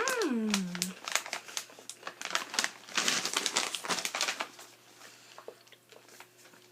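Plastic snack bags crinkling as they are handled, with many sharp crackles that are densest about three seconds in and thin out afterwards. A short vocal sound rising and falling in pitch opens it.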